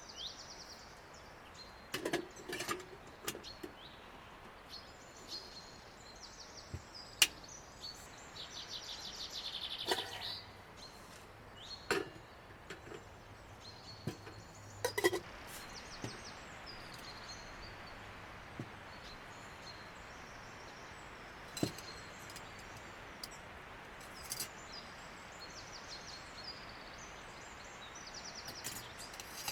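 Forest ambience with small birds singing: repeated high trills and chirps over a steady background hiss. A few sharp knocks and clicks come through, the loudest about seven and fifteen seconds in.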